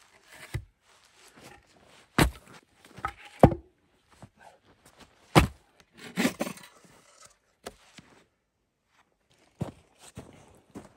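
Wooden logs being handled and set down on snow: three loud knocks, with footsteps in snow between them and a short stretch of bow-saw scraping on a log a little past halfway.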